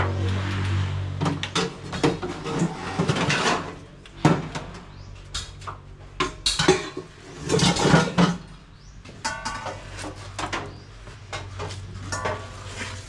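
A vehicle engine running low and steady, which stops about a second and a half in. Then a scattered series of knocks and metallic clinks from hard objects being moved about.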